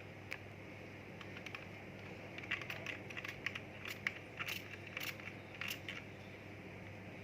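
A run of light clicks and small rattles from hard objects being handled, busiest in the middle.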